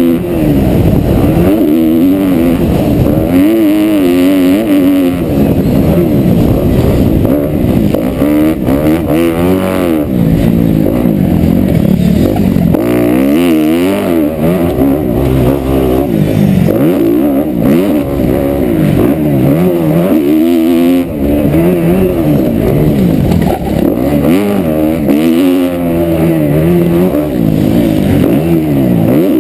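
Kawasaki KX250F's single-cylinder four-stroke engine, heard from on the bike, revving hard and falling off again and again as the rider opens and shuts the throttle and changes gear around the track.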